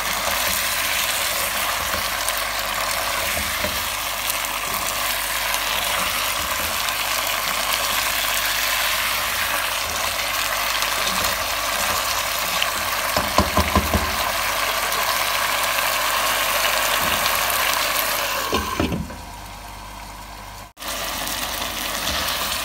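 Chicken leg pieces sizzling in oil in a nonstick pot as they are stirred with a wooden spatula, with a few knocks about 13 seconds in. The sizzle drops quieter near the end, then comes back.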